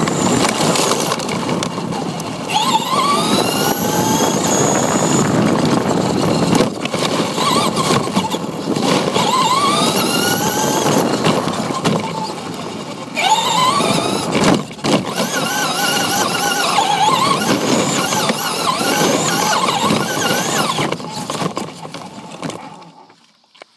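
Radio-controlled car driving over pavement and gravel: the motor whines, rising in pitch as it speeds up and falling as it slows, several times over, above a steady rumble of tyres on the rough surface. Near the end it all dies away as the car comes to a stop.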